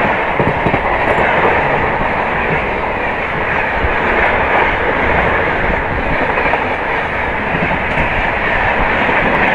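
A passenger train's LHB coaches rushing past a moving train on the next track, a loud steady rush of wind and rails with the clatter of wheels over rail joints mixed in. The sound is heard through the open door of the moving train.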